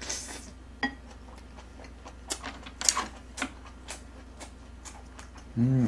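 Close-up chewing of a mouthful of rice and braised kimchi short ribs: wet mouth clicks and smacks at an irregular pace. Near the end a short hummed "mmm".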